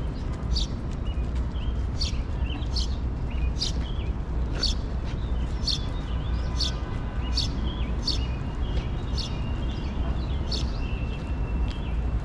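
A bird chirping over and over, one short high note about every three-quarters of a second, over a steady low background rumble.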